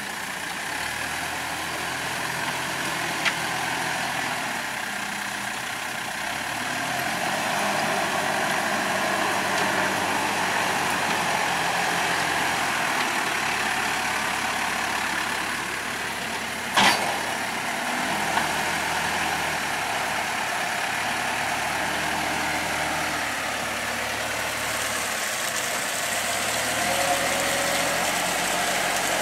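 Motor vehicle engine running steadily at low speed, with a sharp knock about 17 seconds in.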